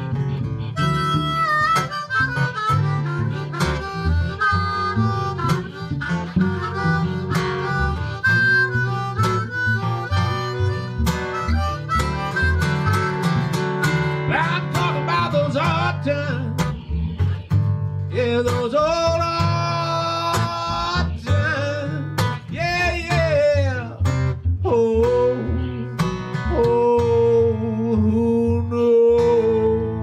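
Blues harmonica solo over a strummed Eastman acoustic guitar, with bending harmonica notes about two-thirds of the way through.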